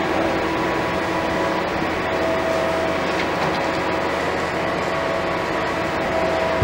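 An R160 New York City subway train standing at the platform, its equipment and ventilation giving a steady hum with several whining tones, while its doors slide shut.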